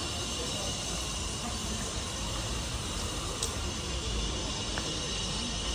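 Steady outdoor ambience of a town square: a constant hiss over a low rumble, with one faint tick about three and a half seconds in.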